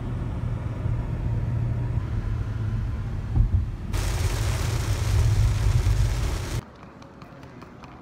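Low road rumble inside a moving car's cabin. About four seconds in, the loud steady hiss of heavy rain on the car joins it. Both cut off suddenly near the end to a much quieter hall with light taps of footsteps.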